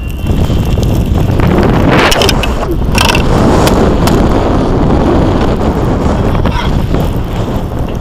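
A car driving on a snowy road, heard through a camera mounted outside the car: a loud, steady rush of wind and road noise. A few sharp knocks come about two and three seconds in.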